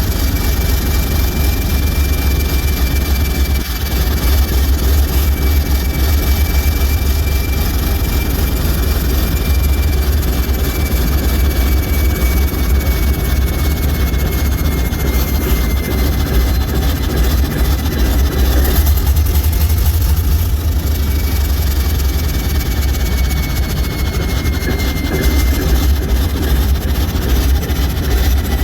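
ALCO 539T turbocharged six-cylinder diesel prime mover of an S4 locomotive running steadily with a heavy low rumble, and a faint high whine that drifts slightly lower.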